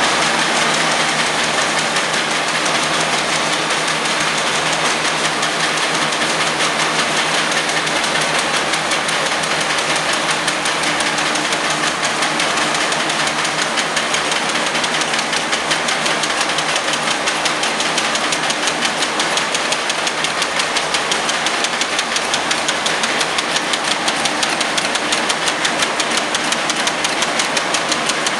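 Safety-pin wire-cutting machine running, feeding and cutting steel wire with a fast, even mechanical clatter that stays steady throughout.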